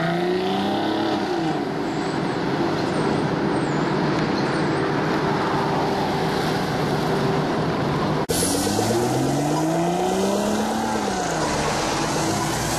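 Aston Martin DB9's 5.9-litre V12 accelerating, its engine note climbing steeply and then falling away, twice. In between is steady engine and road noise, and there is an abrupt cut about eight seconds in.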